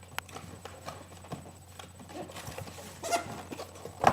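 Cardboard box and packaging being handled and opened: scattered small clicks and rustling, with a sharper knock near the end.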